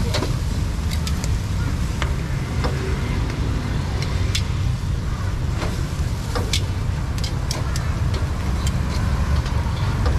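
Steady low rumble of street traffic, with scattered sharp clicks of metal tongs working food on a charcoal grill.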